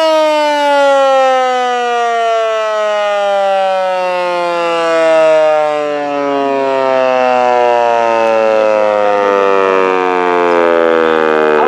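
Electromechanical warning siren winding down after a short run, its pitch falling slowly and steadily.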